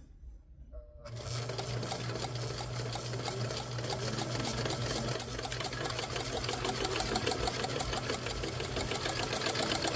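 Hamilton sewing machine starting about a second in and running steadily while sewing a zigzag stitch, with a rapid, even clatter of needle strokes.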